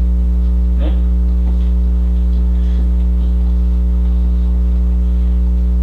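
Loud, steady electrical mains hum in the recording, a low drone with a stack of overtones. A faint, brief sound comes about a second in.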